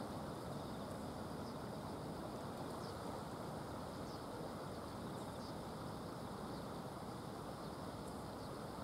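Steady rushing of a swollen, fast-flowing river after rain, with a few faint high chirps now and then.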